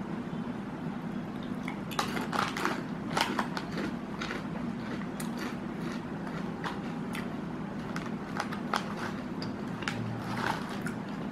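Crisp Lay's seaweed-flavour potato chips crunching as they are bitten and chewed, a run of irregular sharp crackles, with the foil chip bag rustling near the end as a hand goes in for another.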